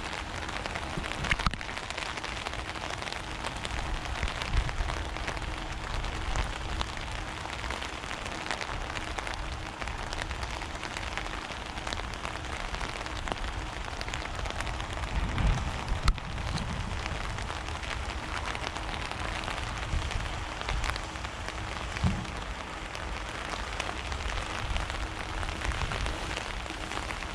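Steady, dense pattering of water, like rain falling on a surface, with a few dull thumps now and then.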